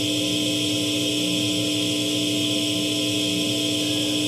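Steady hum and hiss from a switched-on guitar amplifier sitting idle, with one low tone held level above the noise.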